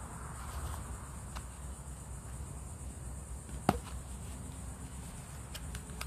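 Scissor point poking a hole through a cardboard toilet-paper tube: one sharp click about halfway through, then a few faint ticks near the end. A steady high hiss and low rumble sit underneath.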